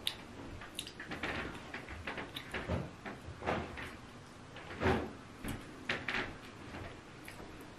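Eating by hand: irregular wet smacks and clicks of chewing and of fingers working eba into egusi soup in a bowl, the loudest about five seconds in.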